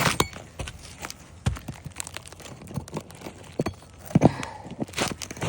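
Pry bar working a stubborn roofing nail out of asphalt shingles: irregular metal knocks and scrapes, with the brittle shingle crunching and tearing.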